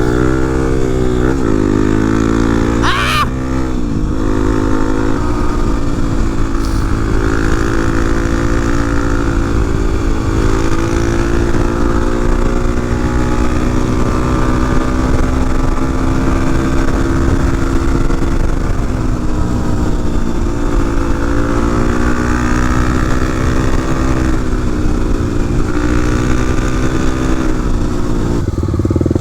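Single-cylinder dual-sport dirt bike engine being ridden, heard from the rider's helmet. It revs and drops in pitch a few times over the first four seconds as it shifts gears, then holds a fairly steady cruising pitch with slow swells, under a steady rush of wind, and drops again near the end.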